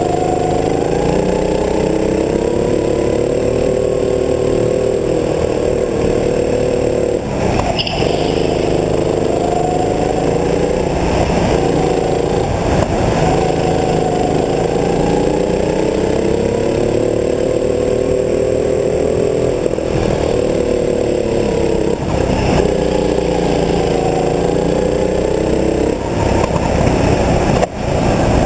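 Go-kart engine running hard around a lap, heard from the driver's seat, its pitch rising and falling again and again as the kart speeds up and slows for corners. It drops off briefly about seven seconds in and again near the end.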